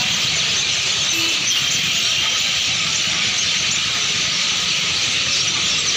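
A huge flock of birds in a tree chirping all at once: a dense, steady, high-pitched chatter of countless overlapping calls.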